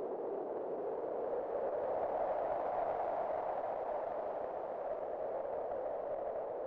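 Wind blowing steadily, a hollow-sounding rush that swells slightly in the middle and eases toward the end.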